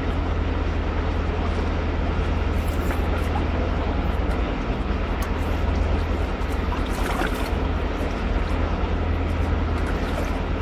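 Steady rush of a fast-flowing river over rocks and riffles, with a deep constant rumble underneath.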